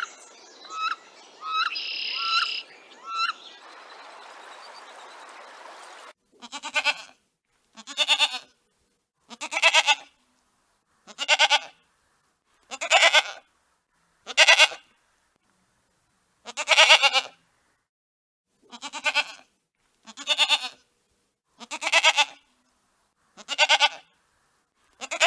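A short run of chirps over a steady hiss, then a farm animal bleating about a dozen times starting about six seconds in, one bleat every second and a half or so.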